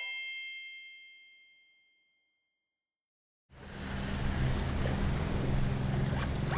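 A bell-like chime sound effect rings and fades away over about two seconds, followed by a stretch of silence. About three and a half seconds in, steady background noise with a low hum starts and is louder than the chime.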